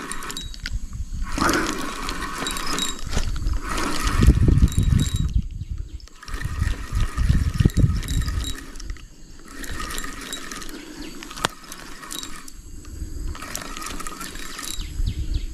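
Water splashing and sloshing in uneven spells, with short breaks between them.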